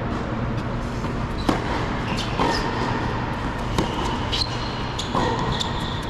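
Tennis rally on an indoor hard court: four or five sharp ball impacts, racket strikes and bounces, spaced a second or more apart, over a steady low hum, with short high squeaks of tennis shoes on the court.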